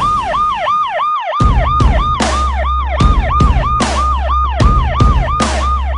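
Police-style yelp siren wailing up and down quickly, about three times a second. About a second and a half in, a heavy drum beat and deep bass come in under it.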